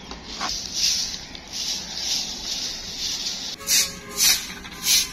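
Dry grass broom swept in short strokes across a concrete floor: a run of brushy swishes, uneven at first and then about two a second near the end.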